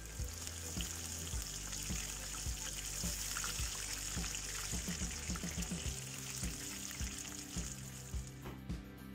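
Spring rolls deep-frying in oil in a wok, a steady sizzle that fades out near the end. Background music with a steady beat plays throughout.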